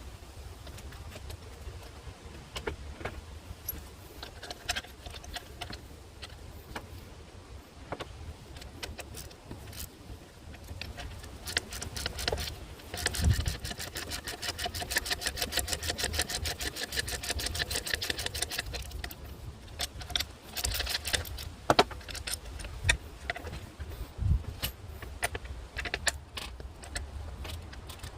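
Hand tools working on the engine: metal clinks and knocks, and a run of rapid, even ratchet-wrench clicking lasting several seconds in the middle, over a steady low hum.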